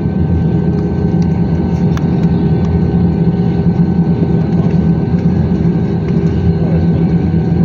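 Airbus A320-200's jet engines and cabin air heard from inside the cabin while the aircraft taxis: a steady low hum with a thin, even whine above it.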